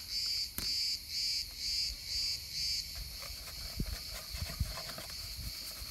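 Trigger spray bottle squirting iron fallout remover onto a wheel hubcap in quick pumps, about three hissing squirts a second, stopping about three seconds in. Light clicks and rubs follow as a hand touches the hubcap.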